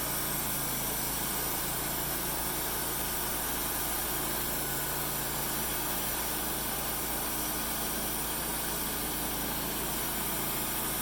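Engine idling steadily at an even level, with a low steady hum and a constant hiss and no change in load.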